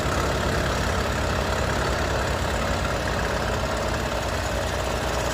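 Bridgeport vertical milling machine running steadily, its end mill cutting out the stripped chain-adjuster thread in a motorcycle swingarm.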